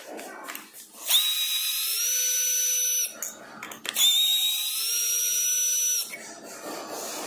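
Electric drill-driver with a hex bit run in two bursts of about two seconds each, driving the hex bolts of a scooter's handlebar stem clamp. In each burst the whine rises in pitch as the motor speeds up, then holds steady before stopping.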